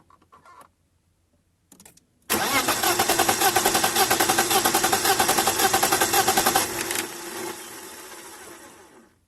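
BMW E36 320i's inline-six engine being turned over on the starter for a compression test on cylinder four, with an even pulsing beat that begins about two seconds in and fades away near the end. The test shows cylinder four has very low compression, about 30 psi, which is causing its misfire.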